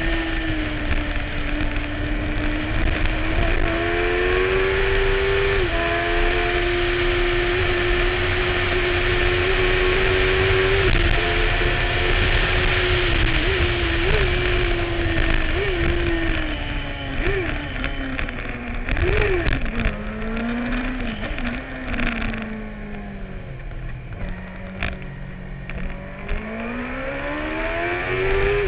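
Suzuki-engined racing sidecar at speed, heard from its own bodywork: the engine runs at high revs with a few gear changes, its revs waver and drop as it slows, then climb steadily near the end as it accelerates again. Wind rushes over the onboard microphone.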